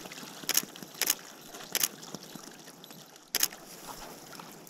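Faint wash of water around a kayak, with four short, sharp splashes or knocks spread through the few seconds.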